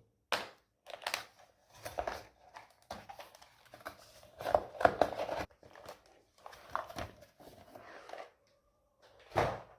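Plastic packaging crinkling and rustling in irregular bursts, with short clicks and knocks from handling.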